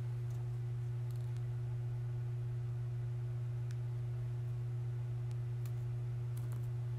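A steady low hum with a fainter higher tone above it, unchanging throughout, and a few faint light clicks from sequins and a small plastic glue cup being handled on the table.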